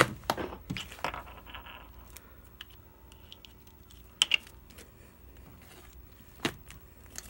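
Small plastic bottles and caps handled on a wooden table: a cluster of knocks and rustling at the start, a sharp double click about four seconds in, and a single knock near the end.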